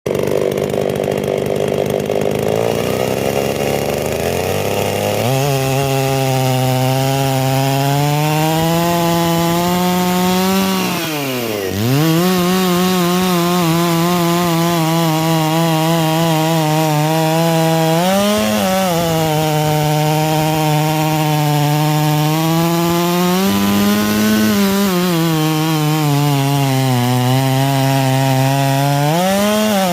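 Stihl MS660-clone two-stroke chainsaw with a 10-pin sprocket running at full throttle, apparently cutting wood. The engine note holds steady under load, sags sharply about eleven seconds in and recovers, and rises briefly a few more times.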